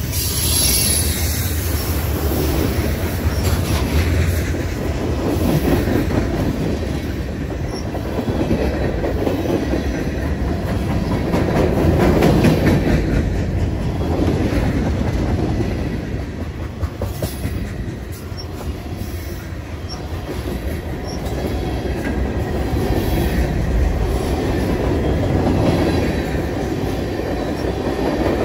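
Freight train cars rolling past on the rails, a continuous rumbling clatter of wheels on track that swells and eases in loudness as the cars go by.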